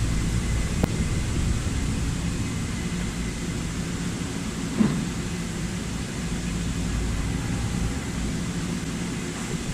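Axelson engine lathe running under power, its spindle and headstock gearing turning with a steady mechanical hum, with a short knock about five seconds in; the buyer judges it to sound good.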